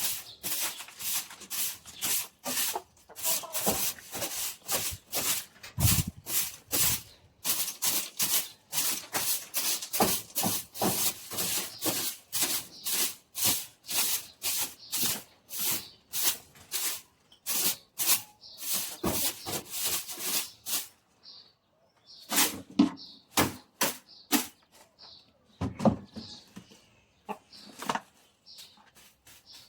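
Broom sweeping chicken droppings off the floor of a chicken pen, in quick repeated strokes about two to three a second, which slow to a few scattered strokes after about twenty seconds.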